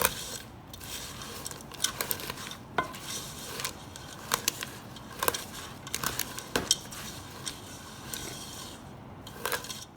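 A pot of chow mein noodles and melted marshmallow being stirred by hand. Irregular clicks and knocks of the utensil against the pot sound over a steady rustle.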